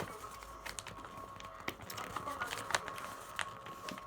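Irregular sharp clicks and crinkles of a sheet of paper being handled and creased while a paper airplane is folded.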